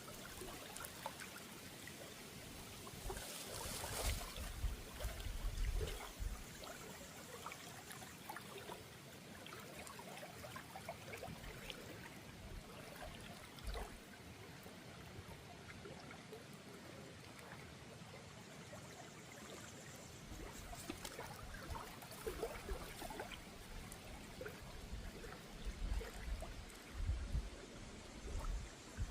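A small river trickling and flowing steadily, with scattered small splashes and ticks. Low rumbling bumps come in a few seconds in and again near the end.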